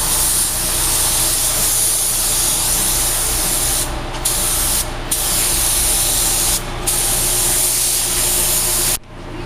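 Compressed-air paint spray gun spraying in a steady hiss, with the trigger let off for a moment three times midway and the spraying stopping shortly before the end.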